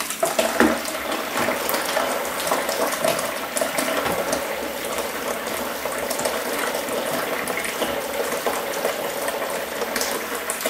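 Tap water running into a sink while a paintbrush is worked in soapy water, with scattered small knocks and clicks.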